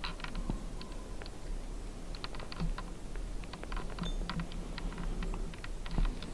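Scattered light clicks and crackles in irregular clusters: handling and movement noise as a person moves through snowy forest with the camera.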